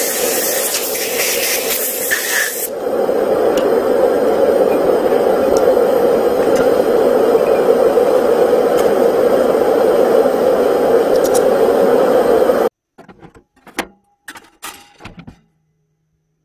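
Compressed air hissing steadily from a blow gun onto aluminium quench plates. It is bright and sharp for the first couple of seconds, then settles into a lower, steady rush that cuts off abruptly about 13 seconds in. A few light clicks and knocks follow.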